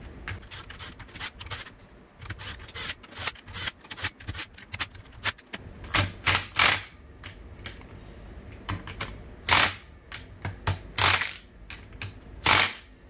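Socket ratchet clicking as it is swung back and forth to run down a nut on the clutch centre of a Honda CR85R engine. There are quick light clicks at first, then several louder clattering strokes in the second half.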